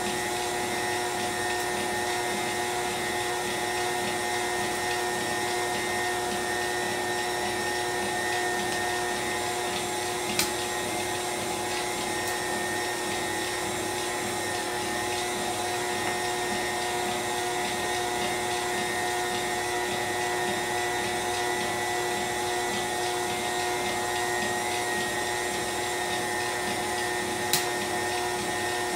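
KitchenAid stand mixer running steadily, its motor giving an even, pitched whine as it beats pound cake batter. Two brief clicks break in, about ten seconds in and again near the end.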